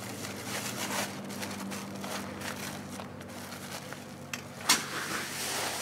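Aluminium sandbagging shovel digging into a pile of gritty sand and filling a woven sandbag: scraping and rustling of sand and bag fabric, with one sharp thud about four and a half seconds in. A steady low hum runs underneath.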